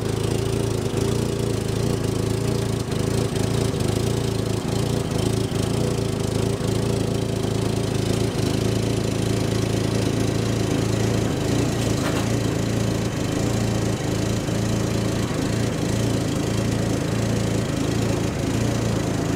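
Harlan aircraft tug's engine running steadily under light load as it tows a wing jig out of a container on a strap.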